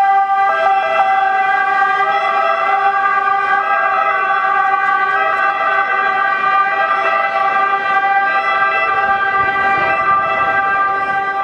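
Sirens of Italian ambulances sounding loud and steady as they pass, with a low rumble of street traffic underneath.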